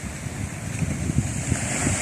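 Sea waves washing onto the shore, with wind buffeting the microphone in low rumbles; the surf grows louder toward the end.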